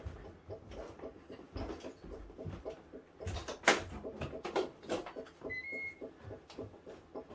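Irregular clicks and knocks as an air fryer is handled and set, then about five and a half seconds in a short electronic beep from its control panel, stepping slightly up in pitch.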